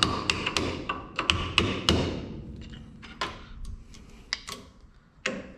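Hammer striking a punch against the inner race of an outboard CV joint, metal-on-metal taps with a short ring. The taps come about three a second for the first two seconds, then a few scattered lighter clicks. The race is being knocked sideways in its cage to tilt it so the balls can be taken out.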